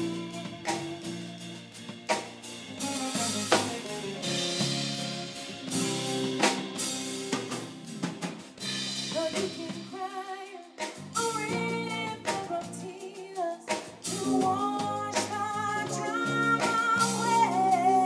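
Live band playing with electric guitar and drum kit, the drums keeping a steady beat. A woman's lead vocal comes in strongly about ten seconds in.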